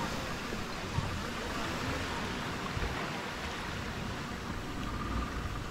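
Small waves lapping and washing onto a sandy beach, a steady, even surf with a low rumble underneath.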